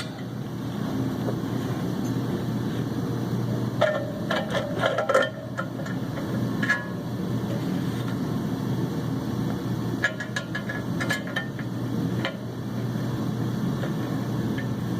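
Short clusters of metal clinks from hand tools and bolts being handled, about four seconds in and again about ten seconds in, over a steady low hum.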